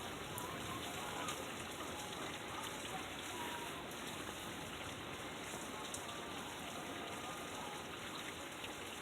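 Steady rain falling during a flooding thunderstorm.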